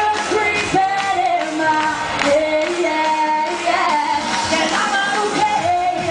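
Live pop song: a woman's lead vocal singing a held, gliding melody over the band's backing music.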